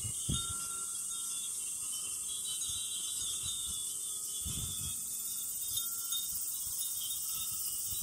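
Steady chorus of cicadas, with glass furin wind chimes tinkling now and then in the breeze. Wind buffets the microphone briefly just after the start and again a little past the middle.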